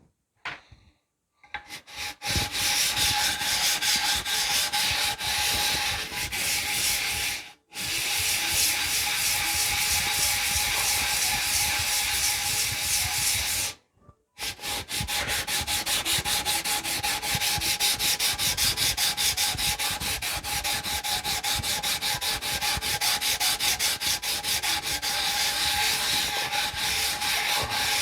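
Knife handle scales being rubbed back and forth by hand on 60-grit sandpaper to flatten them, in quick even strokes. It starts about two seconds in and pauses briefly twice, about a quarter and halfway through.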